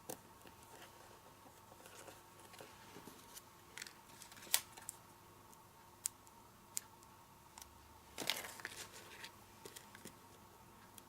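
Faint, scattered ticks and taps of paper craft pieces and glue dots being handled on a work surface, with a brief rustle of paper about two-thirds of the way through.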